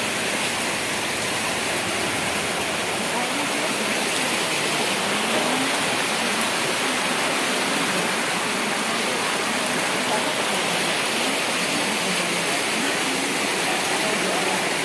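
Floodwater rushing steadily, a constant wash of flowing water.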